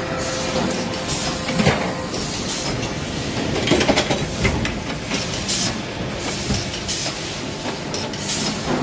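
Factory machinery on a steel access-floor panel production line, running with continuous mechanical noise and metal clanks and rattles. The sharpest clank comes just under two seconds in, with a cluster of clanks about four seconds in.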